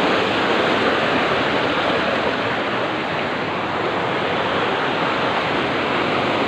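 Water rushing steadily over a concrete weir and sluice gate, a constant even roar of falling water.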